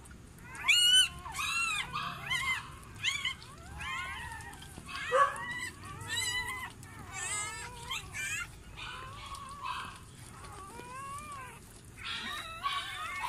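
Newborn Doberman-cross puppies crying: many short, high, squeaky mewing squeals that rise and fall in pitch and follow one another closely. The loudest cries come about a second in and again about five seconds in.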